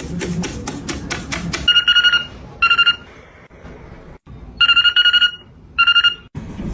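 Telephone-style double ring, a fast trill on a steady pitch, heard as two ring-ring pairs with a pause between them.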